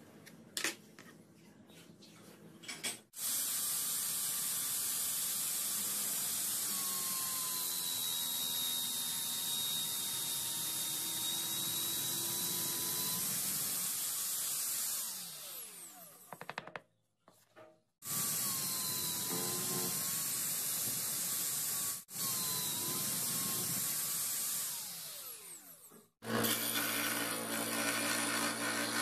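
First a few light knocks as a wooden board is handled. Then a power drill bores holes through the board, running steadily for about twelve seconds and winding down, then running again for about eight seconds with a brief dip before winding down. Near the end a scroll saw starts, its blade cutting through the thin board with a steady hum.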